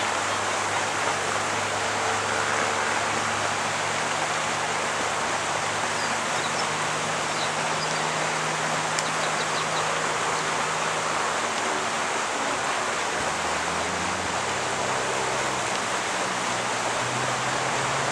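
Steady rushing noise with a faint low hum beneath it.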